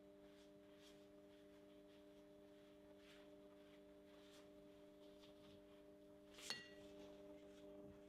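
Near silence: a steady low hum under faint soft swishes of a silicone pastry brush spreading butter over rolled dough. One sharp click with a brief ring about two-thirds of the way through.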